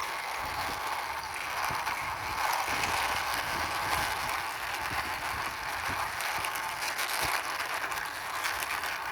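Plastic wheels of a toy racing car rolling and rattling on a hard surface as it is pushed along by hand, a steady ticking, grinding rumble.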